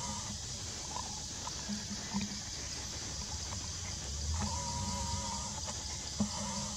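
Steady high-pitched forest background hiss, with a couple of short held animal calls, one about four seconds in and another near the end.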